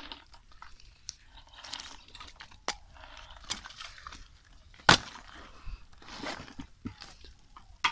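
Sharp clicks and knocks of snail shells and twigs being handled on cardboard beside a small wood fire, between short bursts of rustling and crunching; one loud knock about five seconds in.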